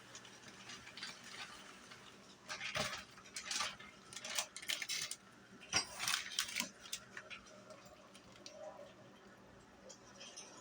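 Utensil clinking and clattering against a cooking pot while the soup is worked, a scattered run of sharp clatters through the middle.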